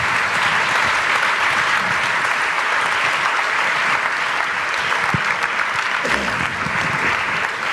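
Audience applauding steadily in a large hall, dense continuous clapping from many hands.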